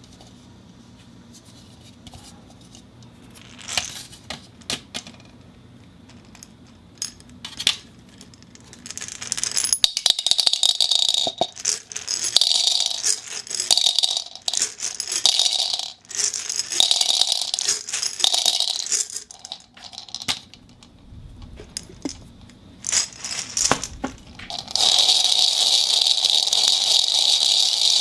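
A ceramic ball knocking and rattling inside a plastic pentagonal cup. It starts with a few separate clicks, then comes in bursts of fast, dense rattling a second or two long, and from near the end it rattles without a break.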